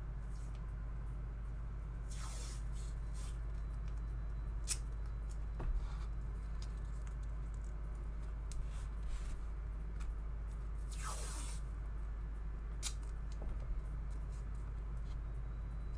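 Steady low electrical hum with scattered light clicks, and two short hissing swishes that fall in pitch, about two seconds and eleven seconds in.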